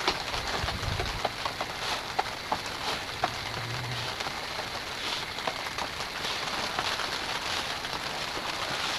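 Steady patter and hiss with scattered light taps and clicks as a steel square and marker are handled against wooden planks.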